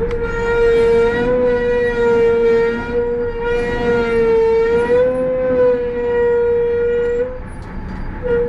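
Minibus brake pads squealing under braking: one long, loud whistle at a steady, slightly wavering pitch. It cuts off after about seven seconds, then briefly starts again near the end.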